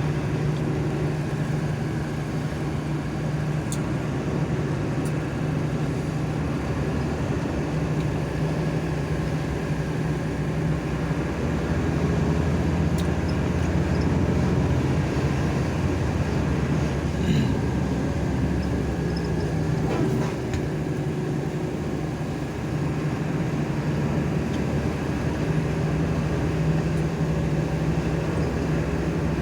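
Steady drone of a moving long-distance coach bus: engine hum and road noise, heard from inside the cabin.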